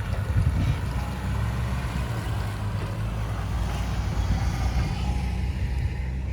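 Four-wheel-drive vehicle driving: a steady low engine drone under a rushing noise that eases near the end.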